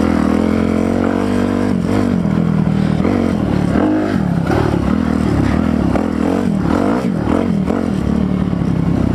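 Kawasaki KLX300R dirt bike's single-cylinder four-stroke engine running under riding load. It holds fairly steady for the first couple of seconds, then revs up and down repeatedly as the throttle is worked.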